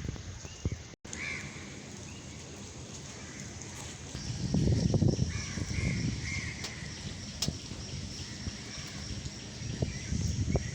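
Birds calling: a few short calls over a low rumbling background, with a brief cut-out just after a second in.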